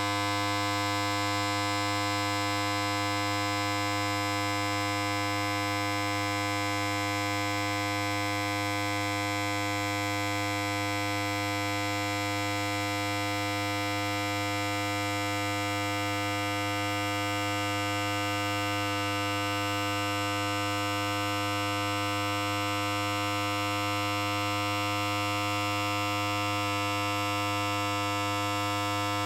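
Electric hair clipper running continuously, a steady buzz at a constant level.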